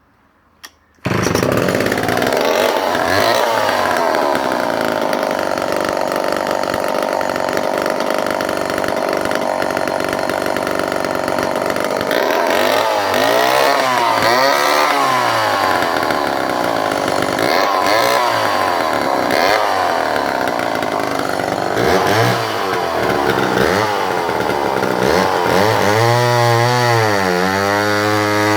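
Remington SL4 59cc two-stroke chainsaw running hard after a sudden start about a second in, then cutting through timber. Its engine pitch sags and recovers again and again under load, dipping deepest near the end.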